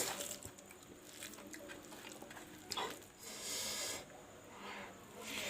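Close-miked eating sounds of someone chewing beef curry: wet squishy chewing and smacking with a few small clicks, and a short airy hiss of breath a little past halfway.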